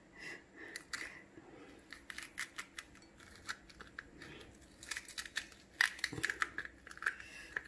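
A metal spoon scraping out the inside of a slit green chili, with small irregular scratchy clicks and crackles as the seeds and pith are torn loose, coming thicker about five seconds in.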